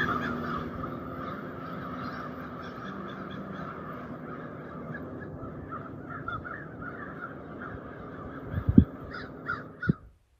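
A flock of birds calling over one another in a dense, continuous chatter of short repeated calls. A few low thumps come near the end, and the sound cuts off suddenly.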